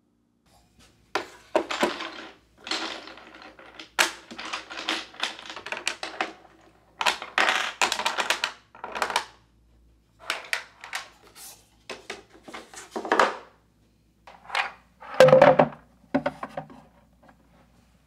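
Household items being handled and set down during tidying: bursts of light clicking, clattering and knocking of plastic and wooden objects, with a heavier knock about three-quarters of the way through.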